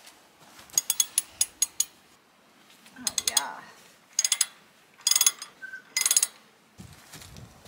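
Socket ratchet wrench clicking in about five quick bursts of rapid ticks as it is swung back and forth to undo a bolt on a mini excavator's panel.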